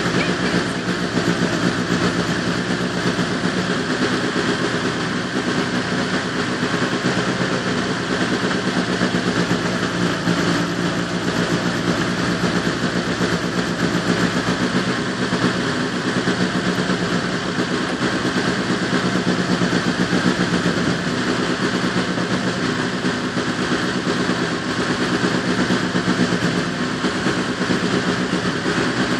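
Volkswagen Golf Mk2 rally car's engine idling steadily, with no revving.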